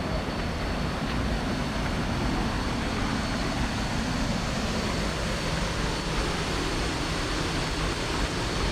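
Steady rush of water from a waterfall and its stream, an even, unbroken noise.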